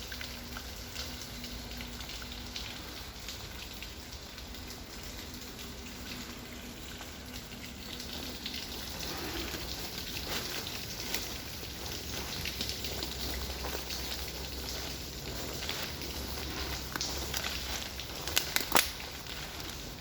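Rain pattering close to the microphone, a steady crackly patter of many small drops, with a few sharp knocks near the end.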